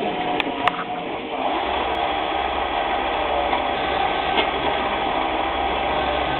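Converted CNC mini lathe starting up: a couple of sharp clicks, then about a second and a half in its spindle drive and gears begin running steadily with a low hum.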